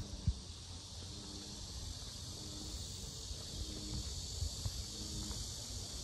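A loud, steady chorus of cicadas: an unbroken high-pitched buzz. A few low thumps come under it, the strongest about a third of a second in.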